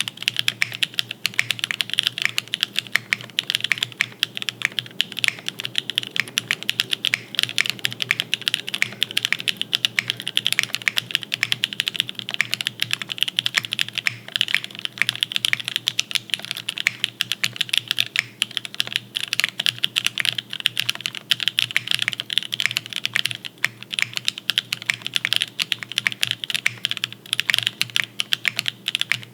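Continuous fast typing on a custom mechanical keyboard with lubed NK Cream linear switches on a full aluminium plate, top-mounted with no foam, and GMK keycaps: a dense, even stream of sharp key clacks.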